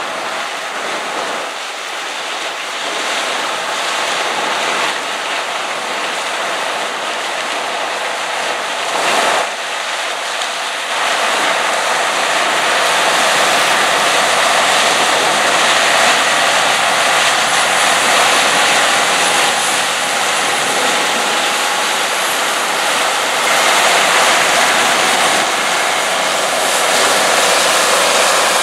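An International Harvester Axial-Flow combine harvesting corn while unloading through its auger into a grain cart, with an IH tractor running alongside: a steady, dense noise of diesel engines, threshing and grain flow. It grows louder about eleven seconds in, with a brief click a couple of seconds before.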